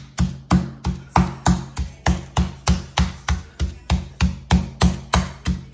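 Metal meat mallet pounding pork loin through plastic wrap on a wooden cutting board, flattening it into a thin cutlet. The blows come steadily at about three a second.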